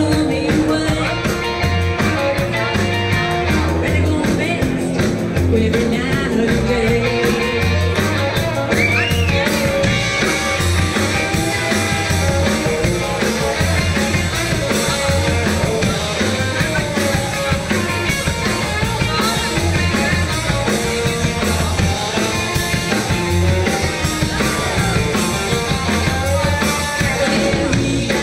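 Live rock band playing: electric bass, electric guitar and drum kit keeping a steady beat, with a woman singing.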